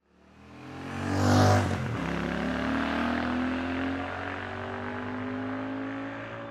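Royal Enfield Shotgun 650's 648cc air-cooled parallel-twin engine pulling hard, loudest about a second in. Its note climbs, drops at an upshift about four seconds in, and climbs again.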